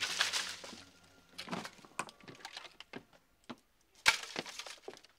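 A short hiss, then irregular clicks and knocks with a woody character. The loudest is one sharp knock about four seconds in.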